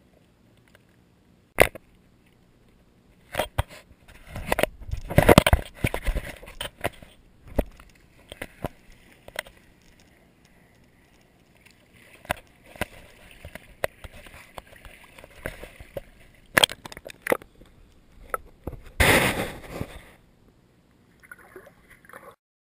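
Water sloshing and splashing against a camera at the surface, with sharp knocks in between. The splashing is loudest about five seconds in and again near the end.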